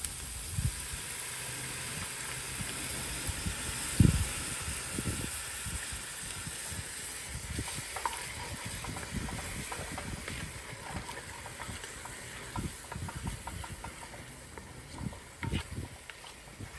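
Chicken stock poured into a hot cast-iron pot of sautéed vegetables, sizzling and hissing as it deglazes the pot, the hiss slowly fading. A wooden spoon stirs and scrapes the pot with scattered small knocks, and one heavier knock about four seconds in.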